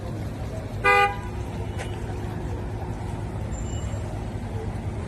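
A car horn toots once, briefly, about a second in, over a steady low street rumble of vehicle engines.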